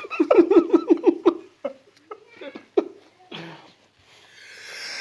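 A man laughing in a quick run of short "ha" pulses for about a second and a half. Then come a few small breathy sounds, and near the end a long, rising in-drawn breath: the build-up to a sneeze brought on by snuff.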